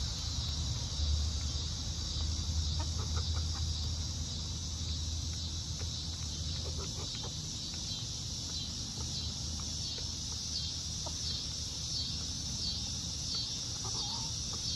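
Backyard hens clucking softly now and then as they peck at food, with a short clearer cluck near the end, over a steady high-pitched hiss.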